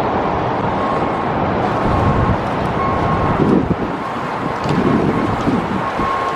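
Strong wind buffeting the microphone, a loud steady rush and rumble of gusts, with a faint high beep repeating about once a second behind it.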